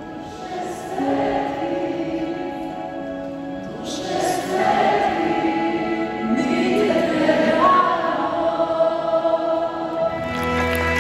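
Live worship music filling a large arena: a band plays while many voices sing a slow chorus together in long held notes, swelling louder about four seconds in.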